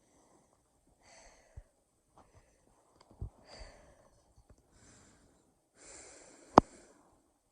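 A person breathing noisily close to a microphone, deliberately awful breathing sounds: about four short, hissy breaths with soft thumps between them. Near the end, one sharp, loud knock on or near the microphone, the loudest sound of all.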